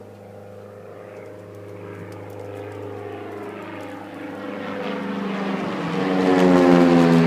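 Commander 112A single-engine propeller plane flying over low. Its engine and propeller drone grows steadily louder, peaks near the end, and falls in pitch as the plane passes overhead.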